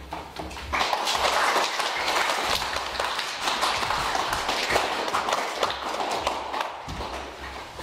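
Small audience of schoolchildren clapping, starting about a second in and thinning out near the end.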